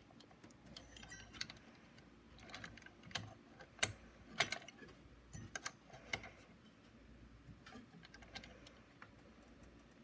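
Scattered small clicks and taps of hands working a CPU heat sink and its retention latch back onto the motherboard in a desktop PC, the two sharpest about four seconds in; the clicking thins out after about six and a half seconds.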